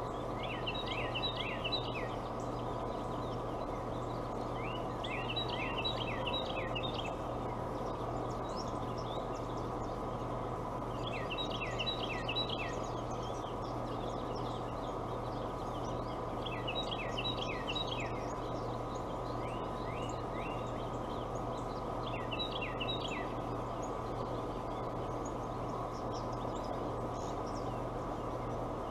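A songbird singing a short phrase of quick falling high notes, about a second and a half long, five times at intervals of five to six seconds, over a steady background hum.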